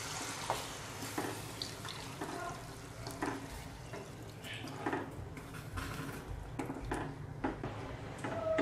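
Hot water pouring into a kadhai of fried masala paste, then a steel spatula stirring the thinned gravy. The spatula scrapes and knocks lightly against the pan every second or so.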